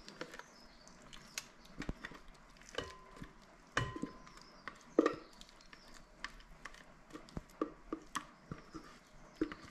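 Kitchen handling noise as thick dip is scraped out of a plastic food-processor bowl into a glass mixing bowl: scattered soft clicks, scrapes and knocks of bowl and spatula. Twice, about three and four seconds in, a knock leaves a brief ringing tone, and the loudest knock comes about five seconds in.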